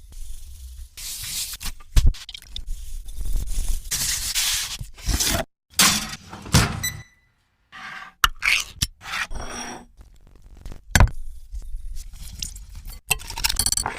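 Kitchen sounds in quick succession: utensils scraping and rubbing with several sharp knocks, broken by a couple of abrupt cuts to silence.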